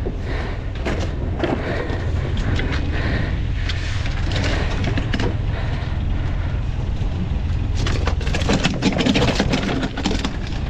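Steady low rumble from the sailboat's engine running out of gear, mixed with wind, under scattered knocks of fishing tackle being handled on the deck. A dense run of clattering comes about eight to ten seconds in.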